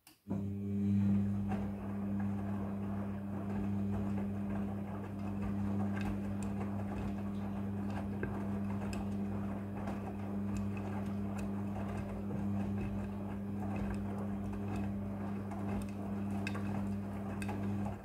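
Midea front-loading washing machine's drum motor starting up and turning the drum with a steady hum, wet laundry sloshing and tumbling inside, with scattered light clicks and knocks. The run stops abruptly at the end, like one turn of the wash cycle's alternating drum action.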